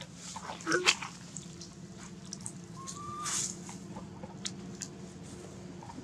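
Macaque giving a short high squeal about a second in, followed near the middle by dry leaves rustling as an infant macaque scampers over them, with a few light clicks.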